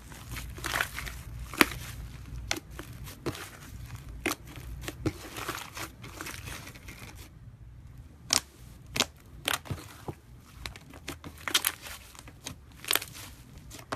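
Slime being squeezed and poked by hand, with irregular sharp crackling pops and clicks.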